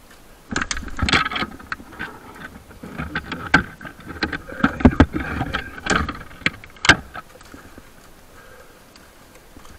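Irregular rustling and clatter with several sharp clicks and knocks, the sound of tree-climbing rope gear being handled.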